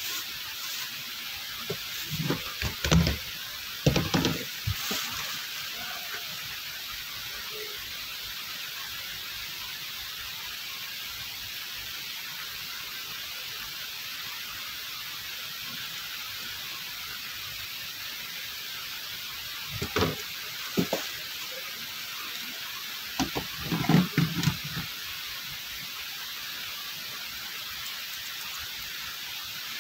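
A steady hiss runs throughout, with short clusters of knocks and bumps about two to five seconds in and again around twenty to twenty-five seconds.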